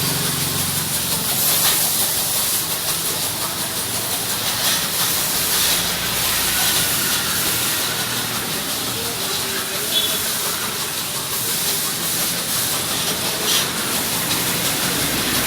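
High-pressure washer jet spraying with a steady hiss, over a low steady hum.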